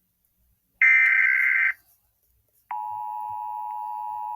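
An Emergency Alert System SAME data burst: a loud, buzzy electronic warble lasting about a second. About a second later the steady NOAA Weather Radio warning alarm tone starts, a single 1050 Hz note, quieter than the burst.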